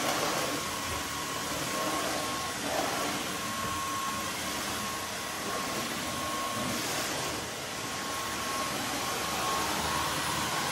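Dyson V15 Outsize cordless stick vacuum running steadily as its laser floor head is pushed over a laminate floor: a steady rush of suction air with a thin high motor whine over it.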